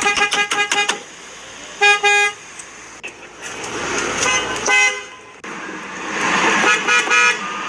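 Car horn honking in short toots: a rapid flurry of quick taps in the first second, then separate toots about two seconds in, around four and a half seconds in, and near the end. Background noise builds in the second half.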